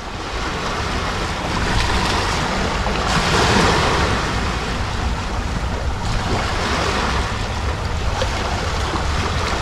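Muddy estuary water washing and lapping into a small gully between mud banks and rocks, with wind buffeting the microphone. The wash swells loudest about three to four seconds in.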